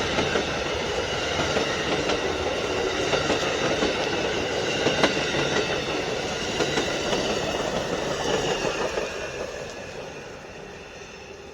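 Amtrak passenger train's cars rolling past, wheels clattering on the track with a few sharp clicks, the sound fading away over the last few seconds as the train moves off.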